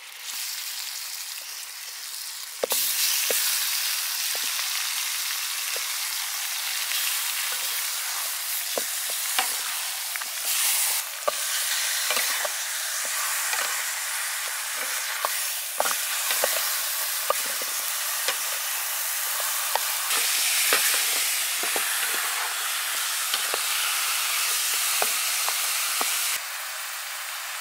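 Beef ribs sizzling in hot oil in a wok, growing louder about three seconds in. A metal spatula turns them, scraping and clinking against the wok now and then.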